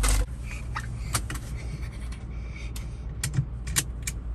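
A brief knock right at the start, then a few sharp clicks spaced out over several seconds: a pump-action salt gun being cocked and fired.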